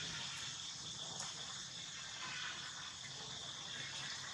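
Steady, high-pitched drone of insects in the background, even and unbroken, with a few faint ticks.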